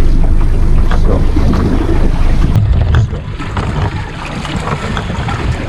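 Wind buffeting the microphone over the sound of the sea around a small boat, a loud low rumble that eases about three seconds in.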